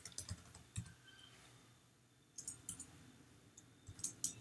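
Faint, scattered keystrokes on a computer keyboard as code is typed: a run of separate clicks, a short pause about halfway, then more clicks near the end.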